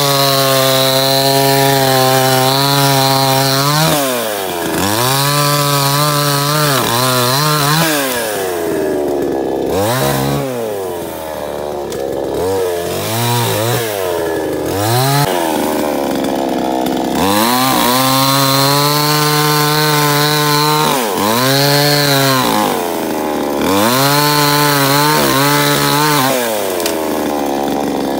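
Salem Master gas chainsaw cutting through a log. The two-stroke engine revs up to full throttle and holds there for several seconds during each cut, then drops back toward idle between cuts. A few short throttle blips come in the middle.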